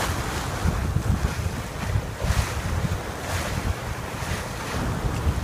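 Wind buffeting the phone's microphone on a sailboat under way, with water rushing and splashing along the hull in surges every second or so.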